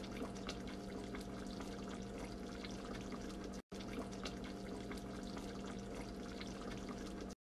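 Chicken curry simmering in a pan, bubbling with many small pops over a steady low hum, broken by a brief gap in the middle.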